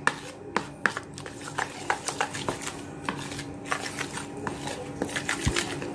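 Metal spoon stirring a thick, wet bait paste in a plastic bowl, clicking and scraping against the bowl several times a second.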